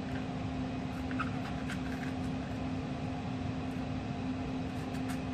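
Steady mechanical hum of a room appliance with a constant low tone, and a few faint clicks as a kitchen knife cuts through a green bell pepper.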